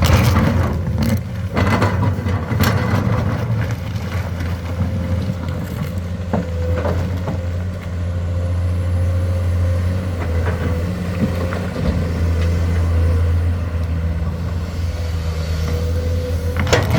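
Komatsu hydraulic excavator's diesel engine running steadily as a low hum, with a thin steady whine above it. A few short clanks come in the first few seconds.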